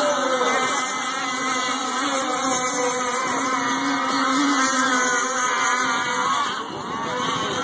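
Engines of several radio-controlled racing boats running at speed together, overlapping engine notes whose pitches rise and fall as the boats race and turn around the buoys.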